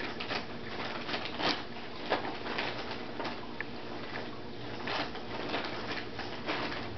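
The small electric motor of a motorized cat toy whirring steadily, with scattered light clicks and taps throughout.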